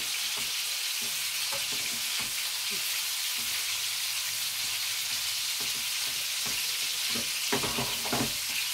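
Köfte (meatballs) frying in oil in a pan, a steady sizzle, with a few brief knocks near the end.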